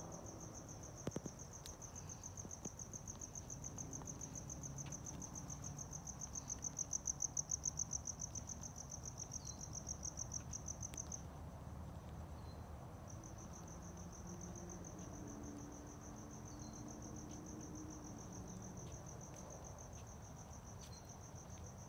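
Crickets chirping in a high, rapid pulsing trill that drops off for a couple of seconds about halfway through, then resumes.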